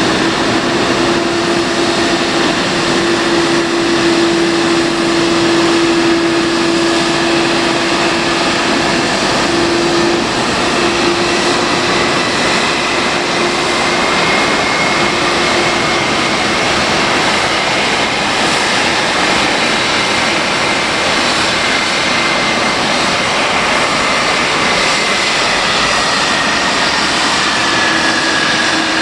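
Boeing 777-300 airliner's jet engines running at a steady power: a constant wash of noise with a low hum and a high whine that rises slightly, holds, and drops a little near the end.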